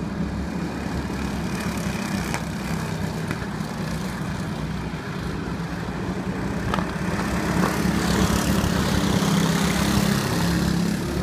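A pack of go-kart engines running together as the field circulates on the track, a steady drone that swells louder about seven seconds in as karts pass close by.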